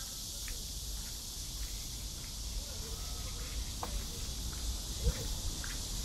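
Outdoor park ambience dominated by a steady, high-pitched drone of summer insects, with faint distant voices and chirps underneath.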